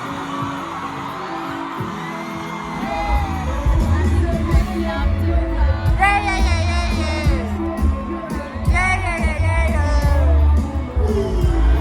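Pop music with singing; a heavy bass beat comes in about three seconds in.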